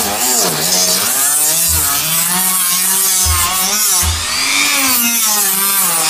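Dremel rotary tool fitted with an 80-grit sanding bit (No. 502) running at speed and sanding old paint off a plastic car bumper, its whine wavering up and down in pitch over a hiss of abrasion.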